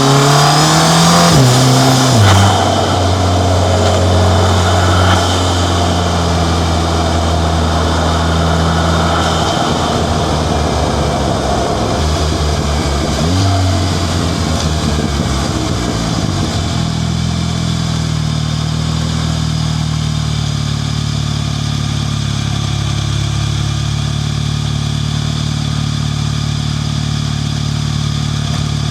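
Volkswagen Golf MK7 GTI's turbocharged four-cylinder engine, fitted with a 4.5-inch ARM Motorsport downpipe, revving up in the first couple of seconds and then running at a steady pitch. A brief rev comes about halfway through, and it settles to a different steady pitch in the last part.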